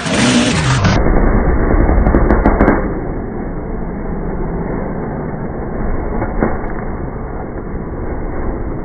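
Enduro dirt bike engine revving hard for about the first three seconds, then running at a lower, steadier level.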